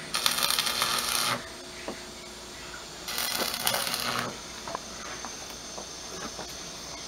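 Electric arc welder welding steel rebar: two short bursts of crackling, sizzling arc, each a little over a second long, about two seconds apart.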